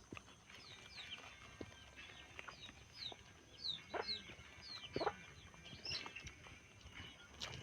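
Chickens clucking, with a run of short, high, falling chirps.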